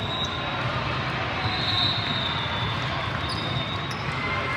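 Steady din of a large sports hall full of spectators chatting, with faint ball contacts and shoe sounds from an indoor volleyball rally, and a brief high squeak about two seconds in.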